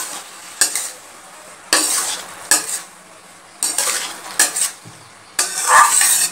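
Metal spatula scraping and stirring chopped snake gourd in a steel kadai, a scrape about once a second, with a faint sizzle of the frying vegetables underneath.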